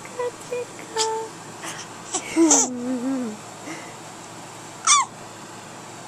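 Baby babbling and cooing: a few short coos in the first second, a longer sound that slides down in pitch in the middle, and a brief high squeal about five seconds in, the loudest moment.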